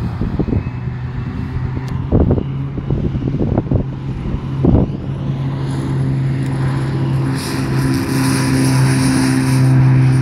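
Light single-engine propeller plane's engine running, growing steadily louder from about halfway in as it powers up. A few short low thumps in the first half.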